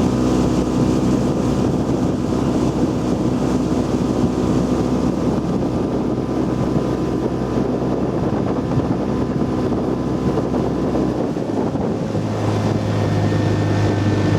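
Speedboat motor running steadily under dense wind and water noise, with wind buffeting the microphone. The engine note changes about twelve seconds in.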